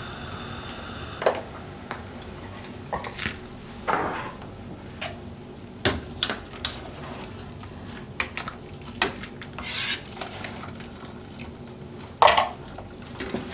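Metal mesh strainer knocking and scraping against the rim and sides of a stainless steel stockpot as blanched greens are scooped out of the hot water: a scatter of light clinks and knocks, with the loudest about twelve seconds in.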